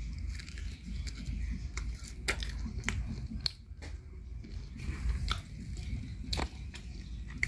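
A person biting into and chewing a charred, fire-cooked small fish, heard as scattered crisp crunches and clicks over a low rumble.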